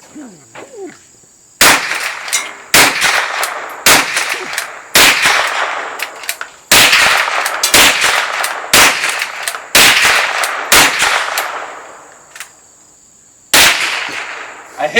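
Gun fired about ten times in slow succession, roughly one shot a second, with a longer pause before the last shot. Each report trails off in a long echo.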